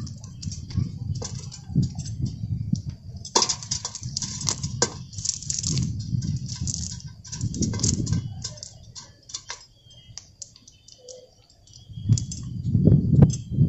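A cast net being handled: a quick, irregular run of small clicks and rattles as the net and its weighted edge are shaken and picked through to free the catch. A low rumble runs underneath, dropping away for a moment and then swelling again near the end.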